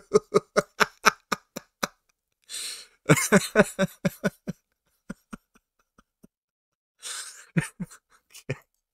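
A man laughing in runs of quick, pitched ha-ha pulses, drawing a sharp breath in twice between the runs.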